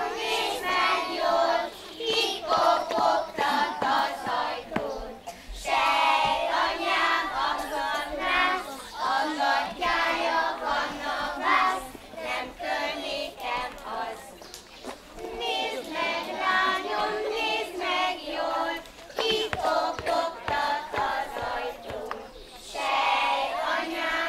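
A group of young children singing a Hungarian folk song together to accompany a dance, in phrases of a few seconds with short breaks between them.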